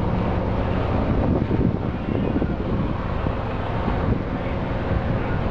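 Steady low machinery hum with a rushing, air-like noise inside a passenger ferry.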